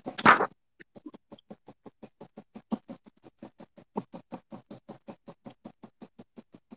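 A stiff paintbrush stippling onto a stretched canvas, dabbing on tree foliage in a quick, even run of soft taps, about six a second, after a short loud noise at the start.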